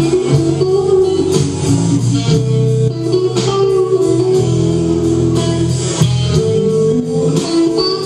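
A live band playing, with guitar to the fore over bass and a steady drum beat.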